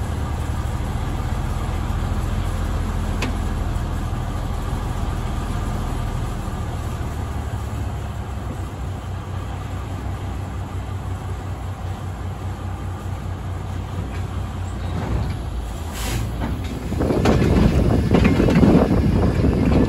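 A caboose rolling along the track behind a 65-ton Vulcan diesel locomotive: a steady low engine drone mixed with the rumble of the wheels. About 17 seconds in this turns into a much louder rattling and rumbling of wheels on the rails.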